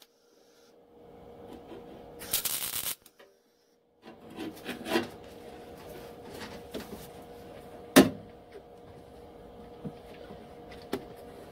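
A short crackle of a welding arc, well under a second, as a spot weld goes into trunk-floor sheet metal about two seconds in. Then rustling and handling noise with scattered clicks and one sharp knock about eight seconds in, over a faint steady hum.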